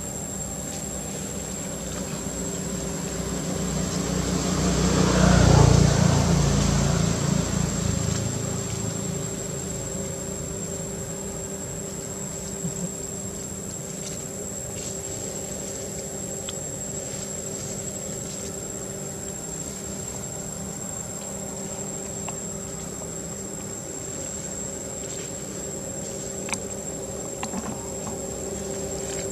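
A motor vehicle passes by, growing louder to a peak about five seconds in and fading away by about eight seconds, over a steady, high-pitched insect buzz.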